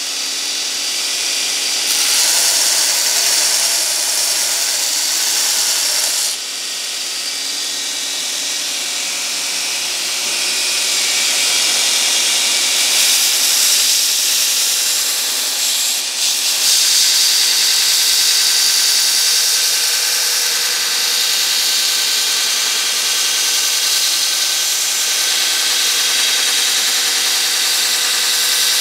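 Homemade 2x72 belt grinder running with steel pressed against its abrasive belt: a steady hissing grind over the hum of the motor and belt. The grind swells and eases as the pressure on the workpiece changes, dipping briefly about six and again about sixteen seconds in.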